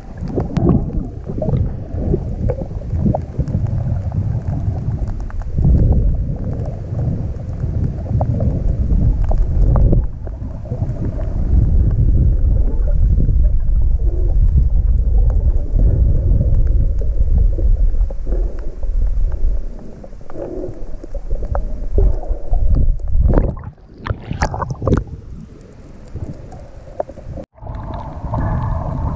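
Muffled, low rumbling water noise from a camera filming underwater while snorkeling, with scattered bubbly crackles. Near the end a faint pitched moaning tone begins.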